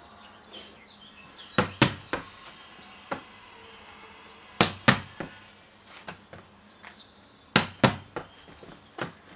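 A volleyball struck against a wall three times, about three seconds apart: each time a sharp slap of the hand on the ball and a knock of the ball off the wall a quarter second later. Lighter knocks follow each as the rebound is played off the knuckles and caught.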